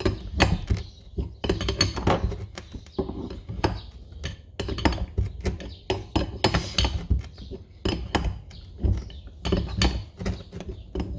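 Steel wrenches clinking and knocking irregularly against the screw and nut of a Lisle pulley installer as the nut is turned, pressing the pulley onto a power steering pump shaft.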